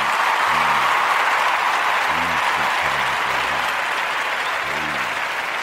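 Applause, loud at first and slowly fading, over music with a repeating low bass line.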